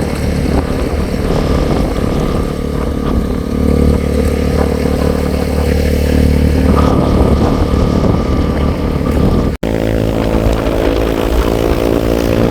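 Engine of a vehicle under way, running steadily with road and wind noise. About ten seconds in there is an abrupt cut to a steadier engine note.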